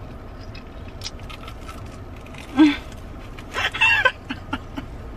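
Eating a crisp-coated fried mozzarella corn dog: chewing with small crunches and mouth clicks, and two short vocal sounds of enjoyment a little past the middle, which are the loudest part. A car's air conditioning blows steadily underneath.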